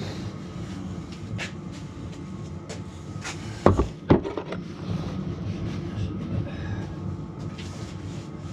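Steady rumble of a Polaris space heater running, with scattered light metal clicks and two loud, sharp metal knocks about four seconds in.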